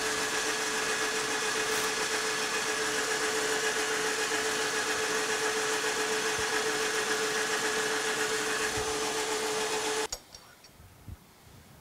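Metal lathe running with a steady hum and whine while a center drill bores the end of a steel drill rod turning in the chuck. The sound cuts off suddenly about ten seconds in, followed by a couple of faint clicks.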